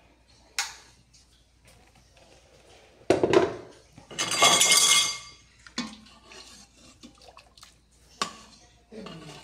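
A metal ladle and spoon clinking and scraping against the stainless-steel inner pot of an Instant Pot while stirring cooked chickpeas. Scattered light clinks, with a knock about three seconds in and a louder, ringing metal scrape just after it.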